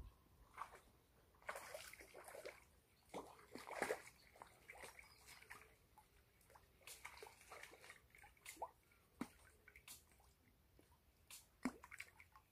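Faint, intermittent water sloshing and small splashes at the surface of a pond, with a few sharper splashes, the loudest just before the end.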